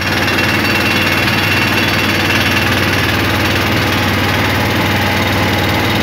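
Small long-tail boat engine running steadily under way, a loud, even engine drone with a fast regular pulse.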